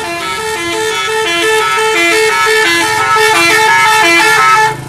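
Bus 'telolet' musical horn playing a rapid melody of alternating notes for about four and a half seconds, stopping shortly before the end. A low engine rumble is under it near the end.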